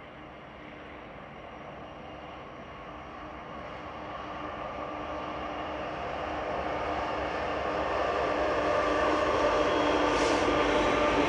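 Union Pacific diesel-electric freight locomotives hauling a train, their engines droning with a steady hum and growing steadily louder as they approach and come alongside.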